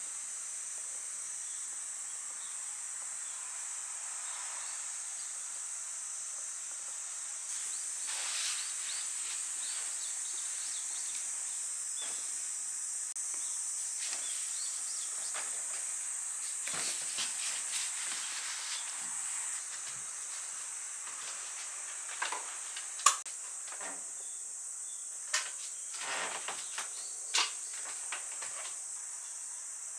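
Steady high-pitched chirring of crickets or other insects, with a few sharp clicks and knocks in the last third.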